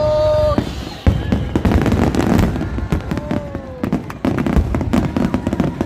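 Fireworks going off: a sharp bang about a second in, then a dense run of crackling pops over low booming.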